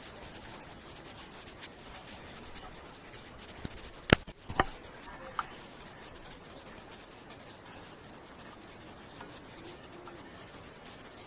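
Faint rubbing and handling as hands press modelling clay into a mould, with two sharp knocks about four seconds in.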